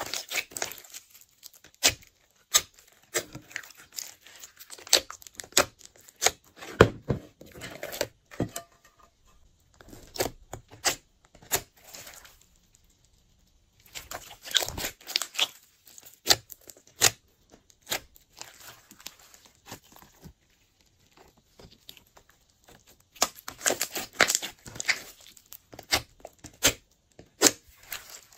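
Hands kneading, squeezing and stretching a large mass of glossy slime. It gives off rapid sticky crackling and popping clicks in bursts, with short pauses between handfuls.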